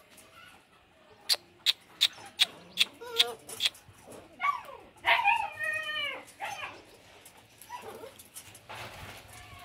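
Puppies yipping and whining. A quick run of about seven short yaps is followed by a longer whine that falls in pitch at its end, then a few softer whimpers.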